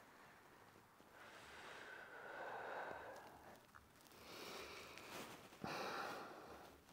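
Quiet breathing of a man holding a seated forward-bend stretch: a slow breath, then a second one that ends in a sharper exhale about five and a half seconds in.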